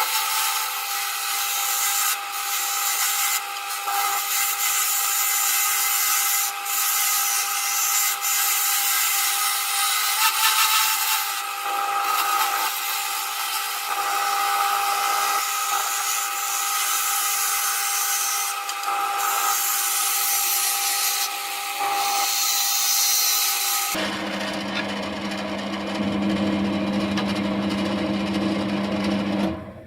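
Wood lathe running with a steady motor whine while a tool works the spinning wooden mallet handle, a rough scraping hiss over the top. About four-fifths of the way through, the sound changes to a lower hum, then cuts off near the end.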